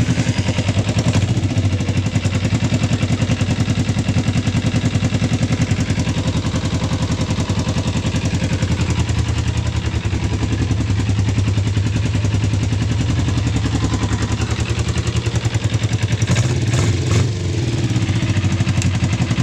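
Suzuki RG250 two-stroke twin engine, swapped into a Kawasaki Ninja 250 frame, running steadily just after starting, with rapid even firing pulses. It gets briefly louder with a short blip near the end.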